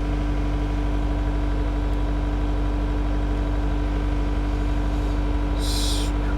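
New Holland L318 skid steer's diesel engine idling steadily while it warms up, with a brief hiss near the end.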